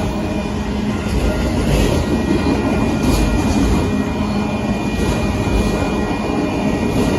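Union Pacific freight train's auto-rack cars rolling past with a loud, steady rumble of steel wheels on rail, and a faint steady high whine above it.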